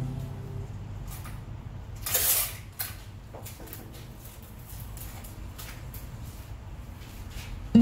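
Bouquet wrapping rustling as it is handled and folded around a hand-held bouquet. There is one brief, louder crinkle about two seconds in, and a few faint taps and knocks.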